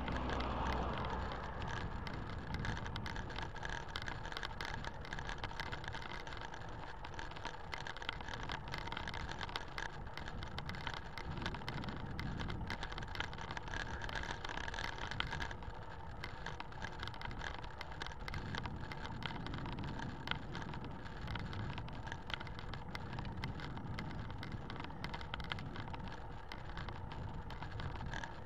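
Road bicycle being ridden on asphalt, heard from a camera mounted on it: a steady rush of tyre, drivetrain and air noise, peppered with many small rattles and ticks, with low rumbling swells now and then.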